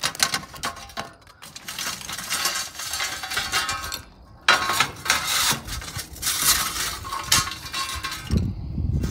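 Metal shovel scraping across the grill's tiled floor as hot lump charcoal is dumped and pushed into place, the coals clinking and tinkling against one another. It comes in two runs of scraping with a short pause between.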